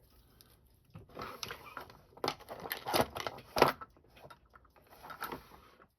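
Small metal watchmaker's tools clicking and scraping against a watch movement, a run of scratchy rustling with several sharp clicks, the loudest a little past the middle.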